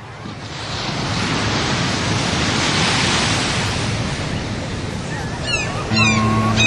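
A steady rushing noise like ocean surf, which swells up over the first second and then holds. Near the end come a few quick falling chirps, and steady low notes as background music begins.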